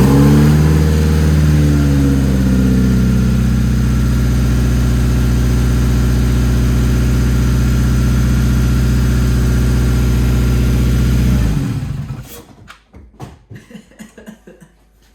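Freshly rebuilt 2017 Subaru WRX turbocharged flat-four engine running on its first start: the revs settle down over the first couple of seconds, it idles steadily, then is switched off about eleven seconds in. It runs without unusual noises.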